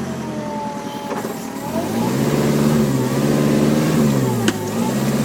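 Site dumper's engine running, then revving up about two seconds in and holding higher revs. Near the end the revs dip briefly with a sharp click, then pick up again.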